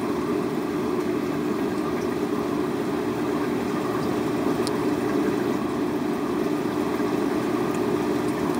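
Steady mechanical hum that does not change.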